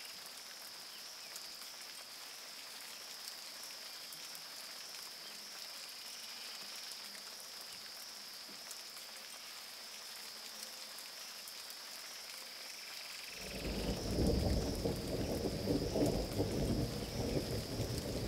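Rainforest ambience: a steady, high-pitched insect drone over a faint hiss. About 13 seconds in, a loud, fluctuating low rumble sets in and continues.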